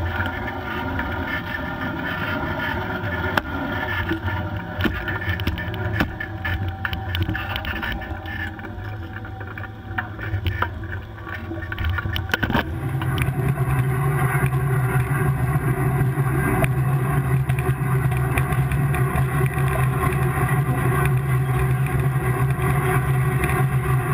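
A tractor-drawn anhydrous ammonia toolbar at work in the field: the tractor's diesel engine drones steadily under constant clicking and rattling from the implement and its row units running through the soil. About halfway through the sound changes abruptly to a louder, steadier low hum with more hiss.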